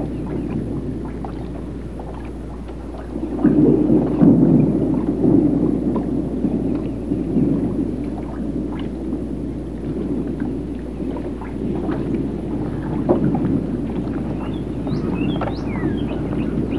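Lakeside water lapping and rippling, louder for a couple of seconds a few seconds in, with scattered small knocks and a brief twitter of bird calls near the end.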